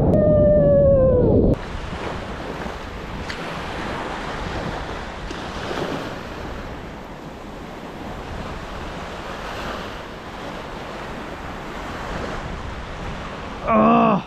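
Small waves washing onto a beach, with wind buffeting the microphone: a steady rush. At the start, a louder rush of a breaking wave with a falling vocal cry over it. A voice breaks in near the end.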